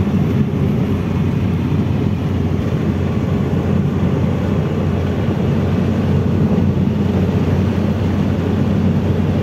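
Car in motion heard from inside the cabin: a steady engine drone and road and wind noise, with a constant low hum.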